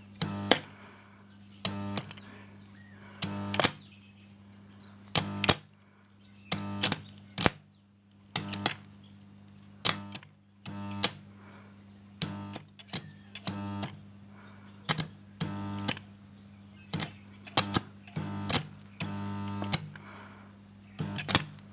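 Old arc welder striking short, stuttering arcs over and over: bursts of crackling buzz that cut out after a fraction of a second each time, over the welder's steady hum. The arc will not hold, as happens with an old welder that struggles to weld.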